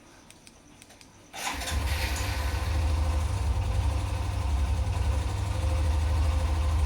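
Hero Xtreme 125R's single-cylinder engine starting about a second in, then idling steadily with an even pulse. The owner asks whether this noise from the engine is normal for the bike.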